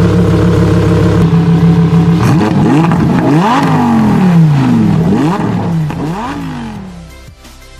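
Lamborghini Huracán Performante's 5.2-litre V10 holding a steady note, then revved up and down several times in quick throttle blips before fading out near the end.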